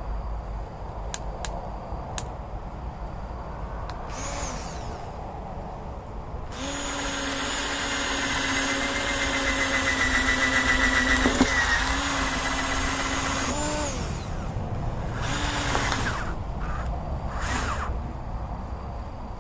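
Electric drill boring a drain hole through the rubber sidewall of a car tyre: a short burst, then a steady run of about seven seconds, then two more short bursts near the end. A few light clicks come before the first burst.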